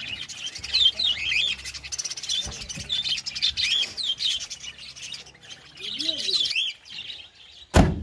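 A crowd of caged budgerigars and other small cage birds chirping and chattering continuously. A single loud thud just before the end, as the van's rear door is slammed shut.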